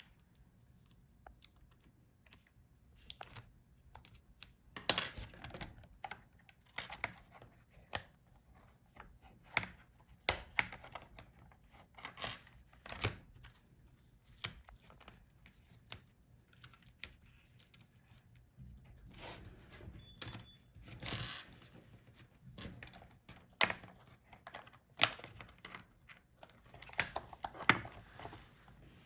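Irregular small clicks and taps of hand tools and plastic laptop parts during disassembly: the keyboard ribbon cable being unlatched and the touchpad being freed from a laptop palmrest.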